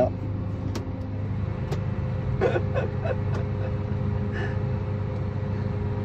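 Combine harvester's engine running steadily, heard from inside the cab, with a few light clicks over it.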